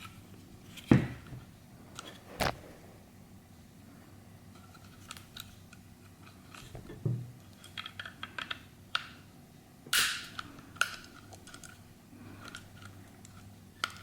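Scattered clicks and light taps of small pistol parts being handled and fitted back together, with sharper clicks about a second in, at about two and a half seconds, and twice around ten seconds, and runs of fainter ticks in between.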